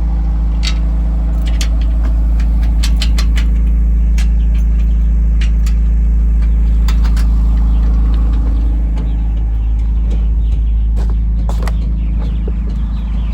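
Vehicle engine running, a loud steady low rumble with an even hum, with scattered sharp clicks and taps over it.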